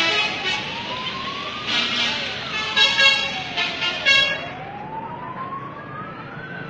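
Bus 'telolet' multi-tone air horn sounding a string of short, loud blasts over a slow siren-like wail that rises and falls in pitch. The blasts stop about four and a half seconds in, and the wail carries on.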